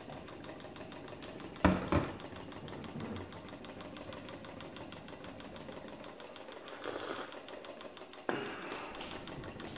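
Small model Stirling engine running with a fast, even mechanical ticking clatter. Two loud knocks come a little under two seconds in, and another sharp knock a little past eight seconds.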